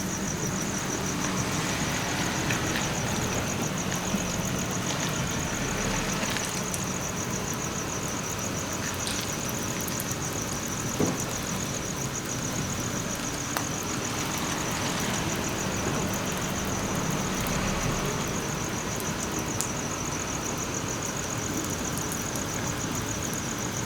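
A motor vehicle's engine running steadily close by, with a constant, evenly pulsing high-pitched chirr of insects above it.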